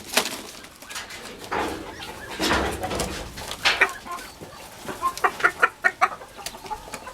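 Chickens clucking and squawking in short, scattered calls as they run from someone chasing them, with a quick run of calls about five seconds in.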